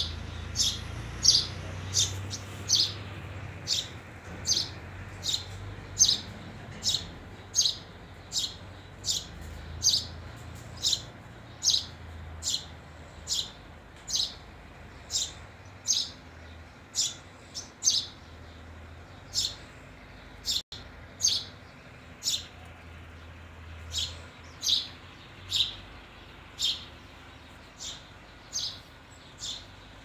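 A sparrow chirping over and over, a single sharp chirp roughly every second, over a faint low rumble.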